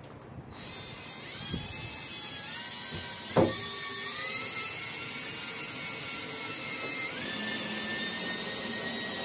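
Cordless drill driving a screw through a hinge into a particleboard lid: the motor whines steadily for several seconds, rising in pitch in steps. There is one sharp knock about three seconds in.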